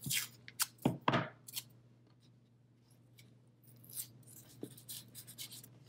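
Scissors snipping off loose yarn ends from a small loom weaving: a quick run of about six sharp snips in the first second and a half, then fainter handling ticks and rustles.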